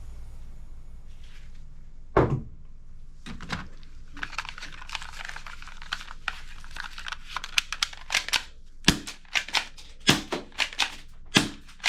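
Clicks and snaps of a toy gun's plastic mechanism being worked: a sharp knock about two seconds in, another a second later, then a run of clicks that grows faster and louder toward the end.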